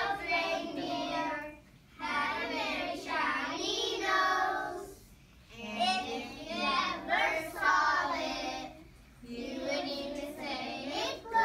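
A class of young children singing together in unison, in sung phrases with short breaks between them.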